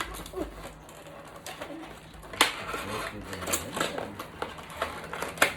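Toy and packaging being handled: scattered small clicks and knocks of plastic, with two sharper clicks, one about halfway through and one near the end, and faint soft cooing sounds between them.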